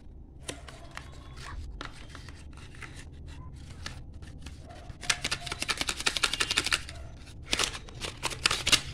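Phone box packaging being handled: cardboard inserts and paper leaflets rustling and tapping. A quick run of rapid clicks comes about five seconds in, and a few sharper taps follow near the end.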